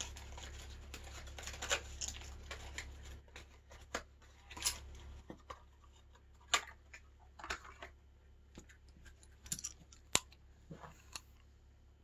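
Scattered light clicks, taps and rustles of a bicycle headset's parts being handled, with a faint low hum underneath that fades about five or six seconds in.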